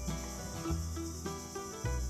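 Background music with a melody over bass notes that change every half second or so, laid over a steady high-pitched chirring of insects.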